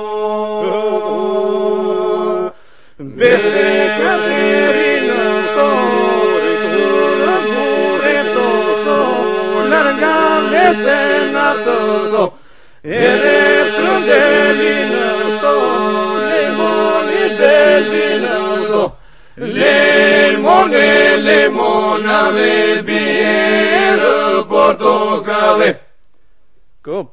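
Albanian polyphonic folk song sung a cappella by a group of voices: melodic lines move over a steady held drone, in long phrases with brief pauses between them.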